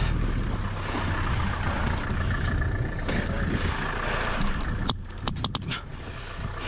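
Jeep engine running with a steady low hum and the rattle and rumble of the vehicle, broken by a quick run of sharp clicks about five seconds in.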